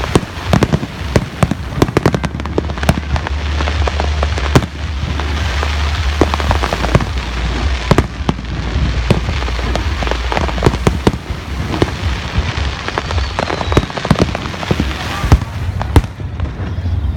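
Aerial fireworks display: a dense, irregular run of sharp bangs and crackles over a steady low rumble.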